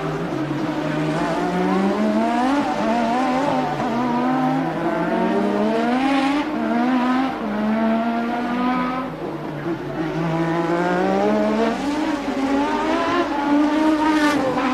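1988 Formula One car engine under hard acceleration, its pitch climbing and dropping back with each quick upshift. About nine seconds in it falls away briefly as the car slows, then climbs through the gears again.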